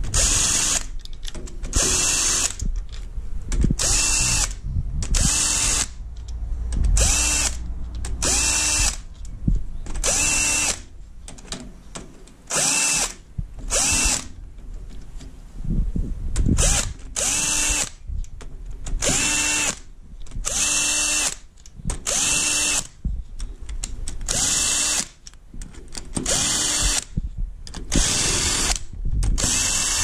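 Cordless power tool spinning a socket on a long extension in about twenty short bursts, each with a quick motor spin-up and wind-down, undoing the camshaft bearing-cap bolts on an EB three-cylinder cylinder head.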